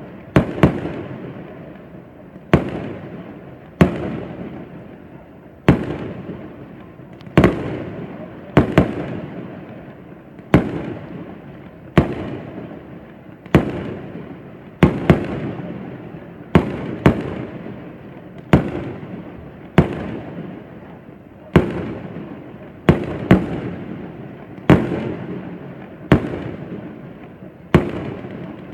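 Fireworks display: about twenty sharp bangs, one every second or two, each trailing off in a long rumble.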